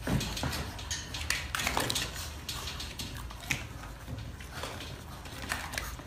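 Wire crate door rattling and clicking irregularly as husky puppies and a white cat push and scramble against it.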